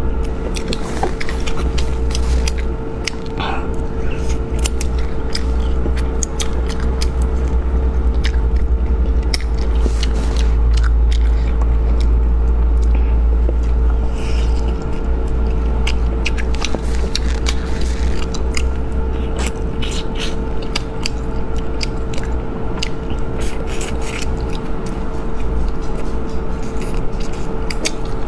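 A person biting, chewing and gnawing meat off spicy braised rabbit heads, with many short, sharp wet clicks and smacks of the mouth, over a steady low hum.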